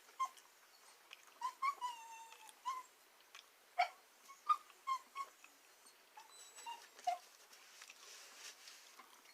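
A dog whining in a few high, thin, drawn-out whines that slide down in pitch, the clearest about one and a half seconds in, with scattered short clicks between them.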